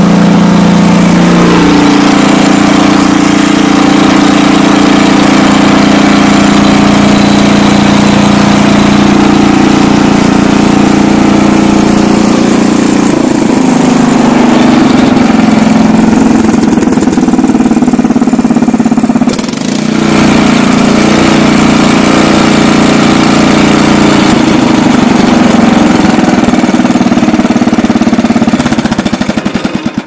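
Kohler Magnum 8 single-cylinder engine on a Troy-Bilt Horse rototiller running steadily on a newly replaced fuel pump, after a no-start caused by a bad pump. It dips briefly about two-thirds of the way through, and near the end it is shut off and winds down.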